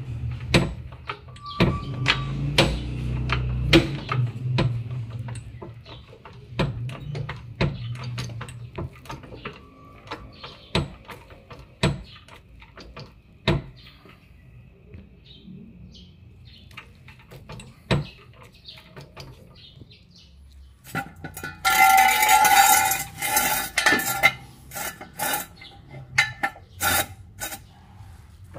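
Hydraulic floor jack being worked under the rear axle: scattered sharp metallic clicks and clanks, with a low rumble in the first few seconds. About three-quarters through comes a louder, rougher rattling stretch lasting a few seconds.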